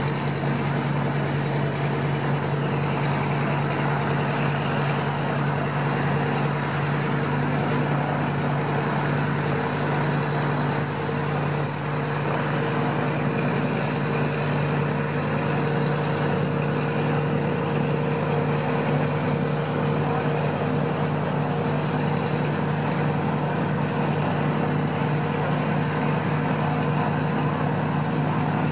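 The Douglas DC-3's twin radial piston engines idling steadily on the ground after start-up, with a deep, even drone and the whoosh of the propellers.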